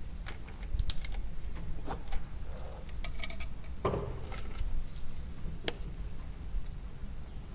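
Scattered small clicks and light knocks of plastic powder vials and a brass loading funnel being handled while a black-powder muzzle-loading pistol is loaded. There is a quick run of clicks about three seconds in, a duller knock just after, and one sharp click near the end.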